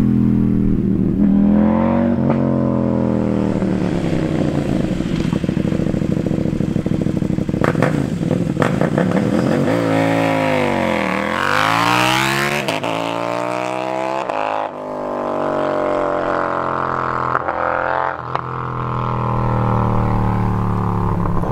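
KTM Duke parallel-twin with an Austin Racing RS22 de-cat exhaust, accelerating through the gears with its pitch climbing and breaking at each shift. About twelve seconds in it passes close by, and its pitch drops sharply. After an abrupt change about fifteen seconds in, the engine is heard pulling through the gears again.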